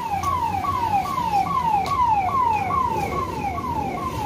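Electronic siren of a fire engine wailing in a fast repeating cycle, each cycle sliding down in pitch and jumping back up, about two and a half times a second.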